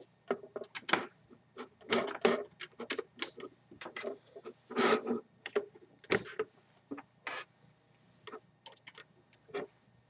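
Irregular clicks, taps and knocks of test leads with banana plugs being handled and pushed into the sockets of a lamp box and a laboratory power supply.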